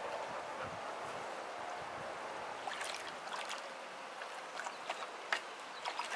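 Water sloshing and splashing in a shallow plastic kiddie pool as a dog wades and steps about in it, over a steady hiss, with a few sharp splashes near the end.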